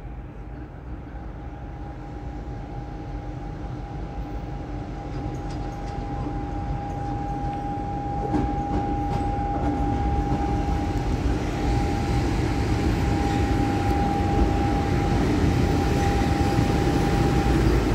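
M62-class diesel locomotive approaching and drawing closer, its engine rumble growing steadily louder, with a steady high whine held throughout.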